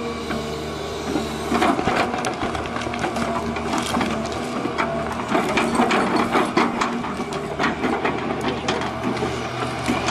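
A heavy machine's engine running steadily while wood is broken up, with many sharp cracks and crunches throughout.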